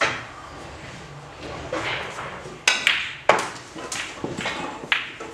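Snooker cue tip striking the cue ball with a sharp click, then a few seconds later a run of sharp clicks as the balls hit one another and the cushions.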